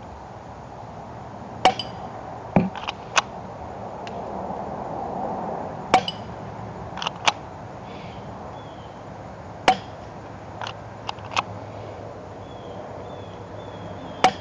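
Plastic M1911 A1 airsoft pistol firing 0.12 g BBs at a glass light bulb: about a dozen sharp clicks and clinks at uneven intervals, some in quick clusters. The BBs are hitting without enough force to break the bulb.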